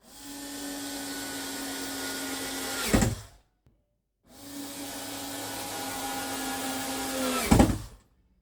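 Cordless power drill/driver run twice, about three seconds each time. Each run holds a steady motor whine, then the pitch drops and the sound peaks as the motor slows under load, as when a screw is driven home.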